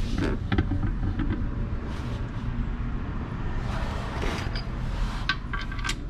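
A steady low rumble, with a few light metallic clicks and taps from hand tools on the motorcycle's rear wheel bolts, a couple of them near the end.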